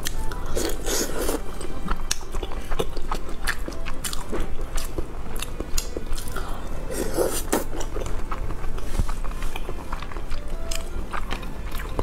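Close-miked eating sounds: bites and chewing of fried egg, with frequent wet mouth clicks and smacks.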